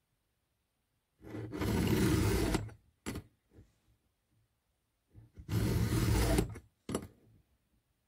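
Round chainsaw file held in a guide plate rasping across a chain cutter in two long push strokes, each about a second and a half, each followed by a short, quieter scrape.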